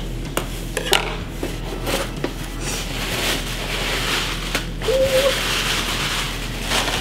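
Tissue paper rustling and crinkling as it is pulled out of an opened cardboard box, after a couple of sharp clicks from the box near the start.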